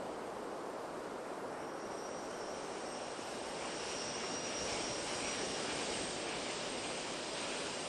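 Steady rushing, hiss-like background noise, with a faint high whistle through the middle, growing slightly louder about halfway.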